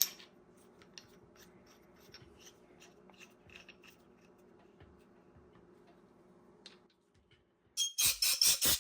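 Small clicks and rubbing of an attachment being fitted onto the nozzle of a Capri Tools CP21350 Windstorm EX air blow gun, over a faint steady hum. About eight seconds in, the blow gun fires a rapid series of short, loud blasts of compressed air.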